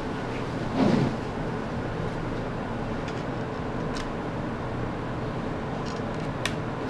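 Laptop screws being set back into the underside of a ThinkPad's case by hand: a brief louder handling sound about a second in and a couple of light clicks, over a steady background hum.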